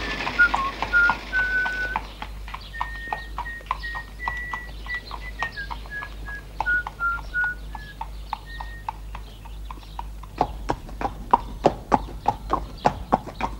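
Horse's hooves clip-clopping at a walk on a paved street, as a steady run of sharp hoof beats that grow louder near the end. A high melody of single held notes, stepping up and down, plays over the hoof beats until about nine seconds in.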